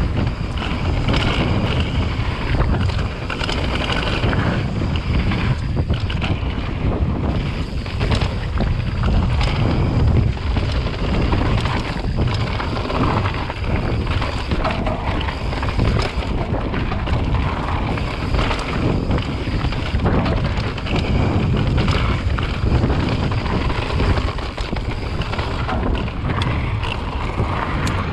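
Wind buffeting the microphone over the rush of mountain bike tyres on a dry dirt trail during a fast downhill run, with frequent short rattles and knocks from the bike over bumps.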